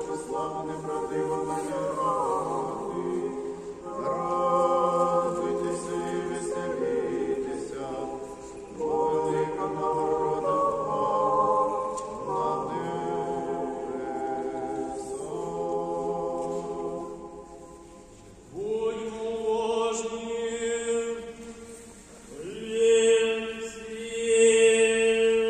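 Church choir singing an unaccompanied chant of the memorial service (panakhyda), in phrases of long held chords with short breaks between them.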